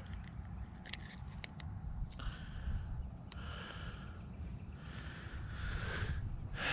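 Metal fishing pliers clicking and scraping as a hook is worked out of a small largemouth bass, with a few sharp clicks about a second in and another a couple of seconds later, amid soft rustles of handling.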